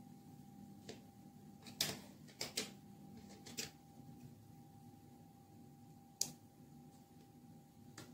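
Quiet handling while crocheting with a metal hook and yarn: about six sharp, irregularly spaced clicks and taps over a faint steady hum.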